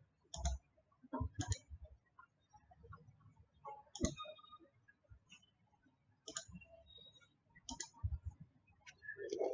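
Faint computer mouse clicks and keyboard keystrokes: a few short, sharp clicks at irregular intervals, a second or more apart.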